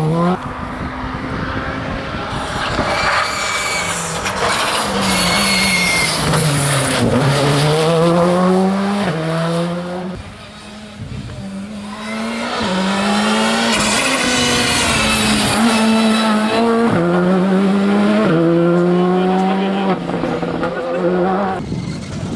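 Two Škoda Fabia R5 rally cars pass in turn on tarmac, each running hard through the corner. The engine note falls and climbs with sharp steps at each gear change, with a short lull between the two cars.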